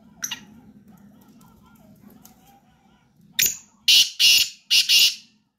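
Black francolin calling: one short sharp note near the start, then a loud series of four harsh, grating notes in quick succession about three and a half seconds in.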